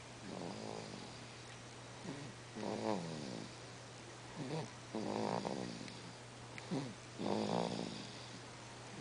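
Sleeping baby making noisy, squeaky breaths, a little like snoring. About five short pitched sounds come roughly every two seconds, each falling in pitch.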